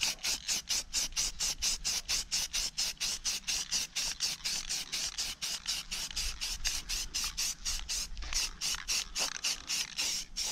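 Aerosol spray-paint can spraying white paint, a high hiss that pulses evenly about five times a second.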